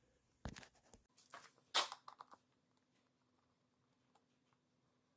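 A few short knocks and clicks, the loudest just under two seconds in, as the three-wheeler's front hub, axle and wheel assembly is handled and worked off; then only faint ticks.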